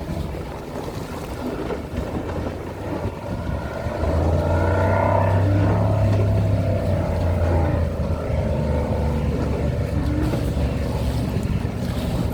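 Racing jet skis running on the water, their engines growing louder about four seconds in as they come past, pitch sweeping, with wind on the microphone.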